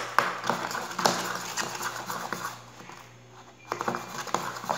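Spoon stirring and scraping a thick, foamy slime mixture of glue and foam in a bowl, with sharp clicks of the spoon against the bowl near the start and again in a quick cluster about four seconds in.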